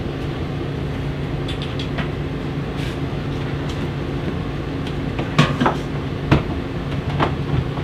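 A few sharp knocks and clunks from a countertop microwave oven being handled and shifted on its shelf, starting about five seconds in, over a steady low hum.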